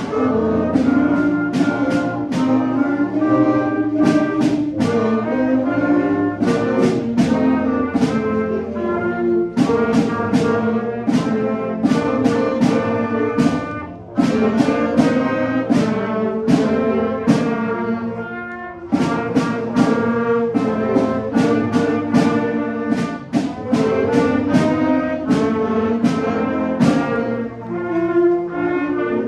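A school concert band playing, with the brass to the fore and frequent sharp percussive hits over sustained chords. It starts suddenly and plays on without a break.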